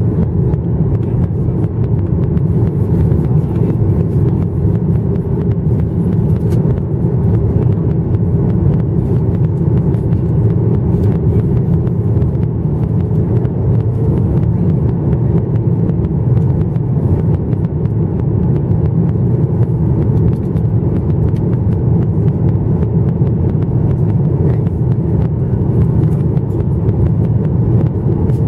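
Steady cabin noise of a Boeing 737-900ER in flight, heard inside the cabin at a window seat by the wing. It is a deep, even rumble of the CFM56 engines and the air rushing past the fuselage.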